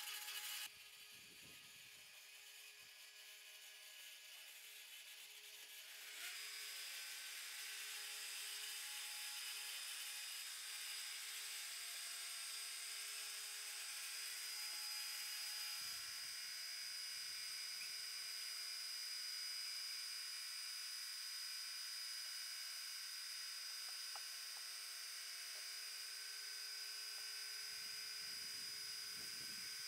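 Boat hoist's motor running as it lowers a boat, a faint steady whir with a high whine held on one pitch; it grows louder about six seconds in.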